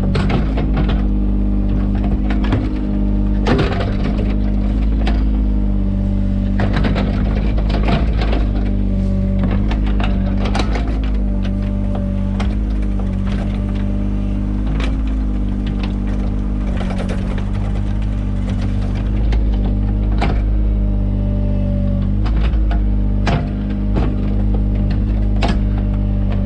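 Mini excavator's engine running steadily under work, with frequent short knocks and clatter from the bucket and arm digging in the soil.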